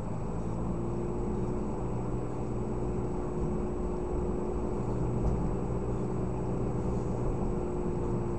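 Steady road and engine noise of a moving car, picked up inside the cabin by a dash camera's built-in microphone, with a steady hum that comes in about half a second in and a faint high-pitched whine over it.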